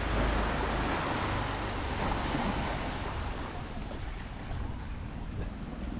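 Small waves of a calm sea lapping and washing over sand and rocks at the water's edge, with wind rumbling on the microphone.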